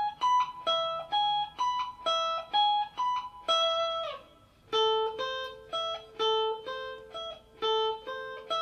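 Guitar playing single-note arpeggios, plucking one note at a time and letting each ring, about two to three notes a second, with a short pause about halfway before a second run. These are the A minor, D minor and E major chord arpeggios played high up the neck.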